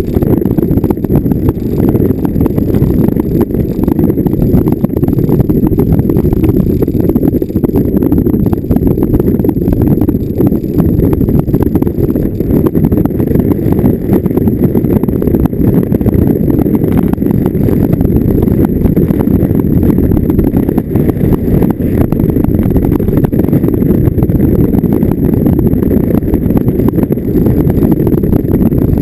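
Vehicle driving over rough off-road ground: a loud, unbroken low rumble with constant rapid jolting.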